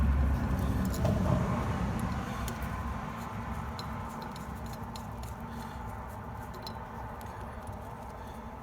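Light, irregular metallic clicks and taps of a T40 Torx bit working the bolts out of an A/C compressor housing. A low rumble fades away over the first three seconds.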